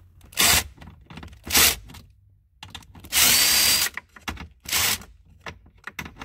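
Cordless impact driver run in four short bursts, the third held for most of a second, backing out a 7 mm glove-box bolt.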